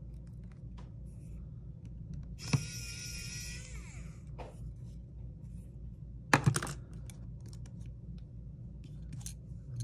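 Small electric precision screwdriver whirring for about a second as it backs out a tiny screw, its whine dropping in pitch as it stops. About six seconds in comes a sharp clatter, the loudest sound, with small ticks between.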